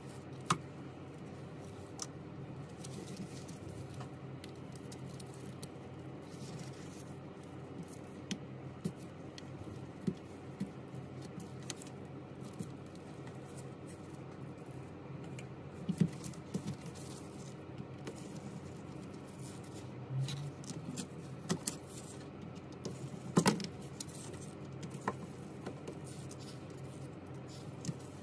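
Scattered light clicks and taps of a precision screwdriver, tweezers and phone parts being handled and set down during an iPhone screen replacement, with two louder knocks partway through, over a steady low hum.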